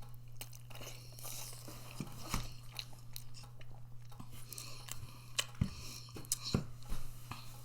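A person chewing food close to the microphone: irregular wet mouth clicks and smacks, a few sharper ones near the end. A low steady hum runs underneath.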